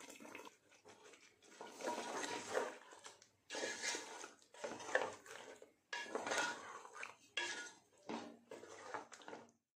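Black spatula stirring thick chicken marinade in an aluminium pot, scraping and knocking against the pot's sides and bottom in repeated strokes about once a second.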